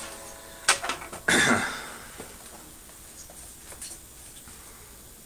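Acoustic guitar being handled and settled into playing position. A sharp knock against it comes under a second in while its open strings ring briefly, then a short brushing rustle. Only faint small handling clicks follow.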